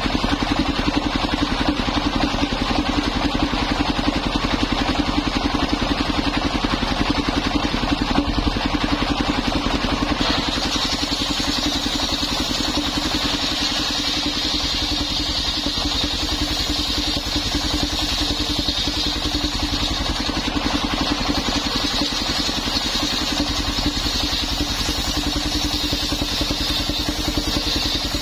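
A mobile circular sawmill runs with its belt-driven engine going steadily in a fast, even beat. About ten seconds in, the blade starts cutting old coconut wood, adding a steady high whine and hiss of sawing over the engine.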